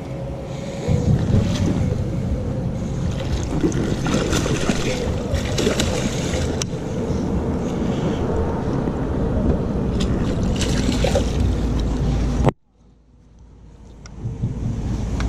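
Wind buffeting an action camera's microphone on a kayak, with water splashing against the hull and scattered knocks from handling. Near the end the sound cuts out suddenly and fades back in over a couple of seconds.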